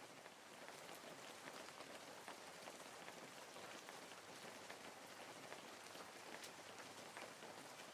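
Wood fire crackling: a soft, steady hiss with many small, irregular pops and snaps.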